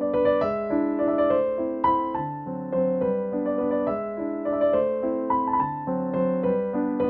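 Background piano music: a light melody of single notes over steady lower notes.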